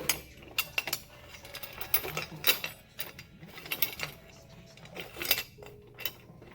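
Irregular metallic clicks and clinks from a coin-operated candy vending machine being handled while its coins are collected.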